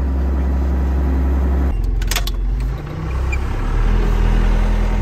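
Heavy diesel engine idling with a steady low hum. About two seconds in it gives way to a few clicks, then a tractor's diesel engine running steadily, heard from inside the John Deere tractor's cab.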